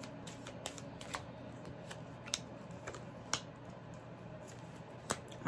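Reading cards being handled and laid out on a table: faint, irregular clicks and snaps of card stock, a few per second at most, over a low steady room hum.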